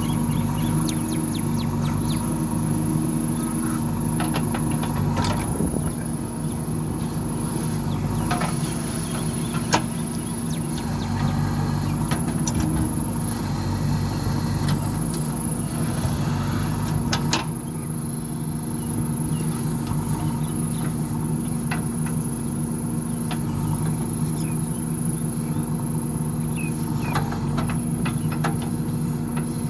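JCB backhoe loader's diesel engine running steadily under working load, with scattered sharp clicks and knocks over it.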